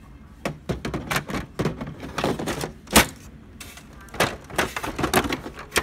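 Plastic clicks, knocks and scrapes from a toner cartridge being handled in the open cartridge bay of an HP laser printer, with one sharp knock about three seconds in.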